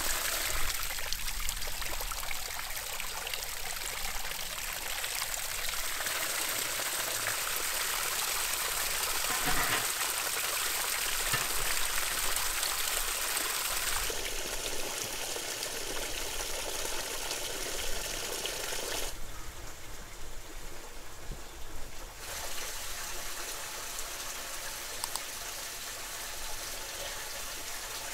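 Running water trickling steadily. Its sound changes abruptly a few times.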